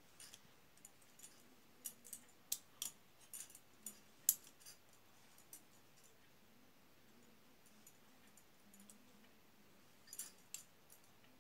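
Small sharp metallic clicks and ticks of a bent wire being worked inside a handcuff's keyhole, with the cuff's steel parts clinking. A run of clicks through the first few seconds, then a lull, then a short cluster near the end.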